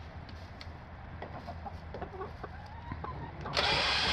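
Hens clucking softly, with a few small clicks. Near the end a louder, steady noise starts suddenly.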